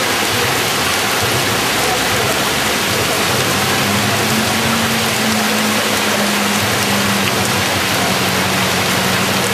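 Heavy rain falling onto a flooded street, a loud steady hiss of drops striking standing water.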